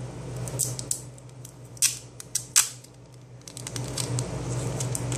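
Plastic wrapping crinkling and crackling in short bursts as it is handled, with a few sharper crackles about two seconds in, over the steady hum of an electric fan.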